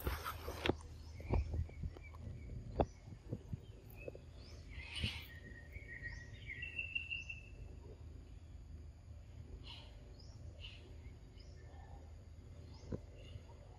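Birds chirping in short, scattered high notes, with one note held for about a second midway, over a low steady background rumble. A few faint sharp clicks come in the first three seconds.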